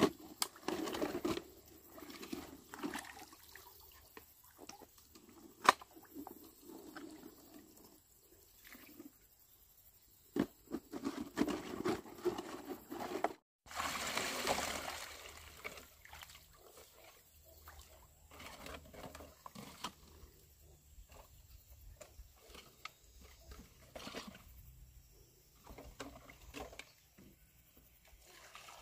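Water trickling and splashing in short, irregular bouts, with a few sharp knocks and rustles of handling. The sound drops out briefly about halfway through.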